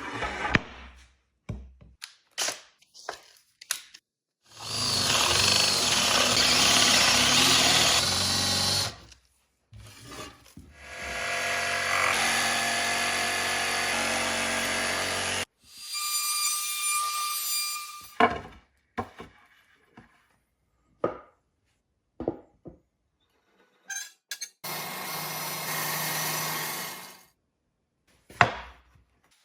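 Workshop power tools cutting and drilling wood in four runs of a few seconds each, one of them with a steady high whine, separated by sharp knocks and clatter of wood pieces being handled.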